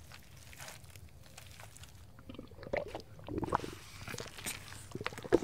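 Quicksand foley: scattered wet squelches and crunchy, sucking sounds of a body sinking into thick mud, coming unevenly.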